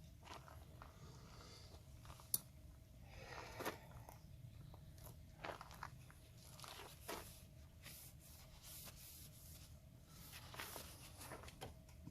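Faint handling noises of a wire and plastic parts being worked by hand inside a car's trunk-hinge wiring loom: scattered light clicks and short scrapes and rustles, with one sharp click about two seconds in.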